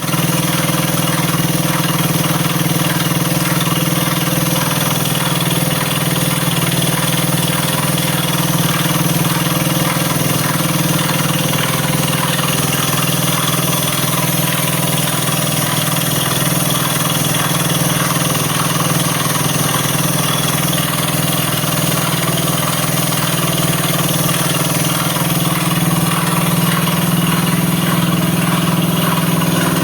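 Honda CBS engine idling steadily, holding an even pitch with no revving.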